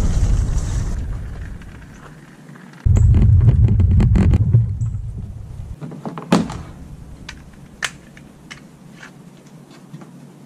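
Kayak cart wheels rolling over a paved path, a loud low rumble picked up close to the kayak. It fades, stops, then comes back suddenly about three seconds in and fades again. After that come a few sharp knocks and clicks as the wheeled cart is handled and lifted off the kayak.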